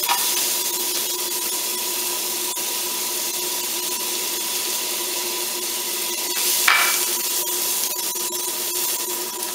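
Butter and slivered garlic sizzling in a hot frying pan: a steady hiss full of small crackling pops. A spatula stirs the pan near the end.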